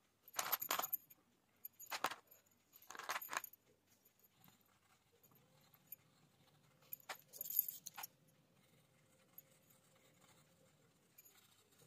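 Faint short bursts of metallic jingling from metal bangles on the colouring hand's wrist, about four times, mixed with the scratch of a coloured pencil on paper.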